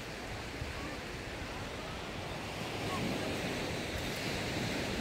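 Surf washing onto a sandy beach, a steady rushing noise that grows a little louder about three seconds in, with some wind on the microphone.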